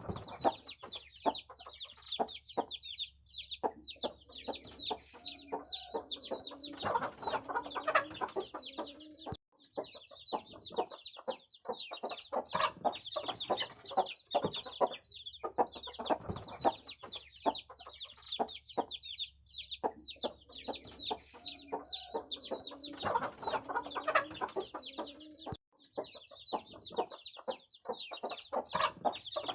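Aseel chicks peeping: many rapid, high, short chirps overlapping, with a few stretches of lower clucking mixed in.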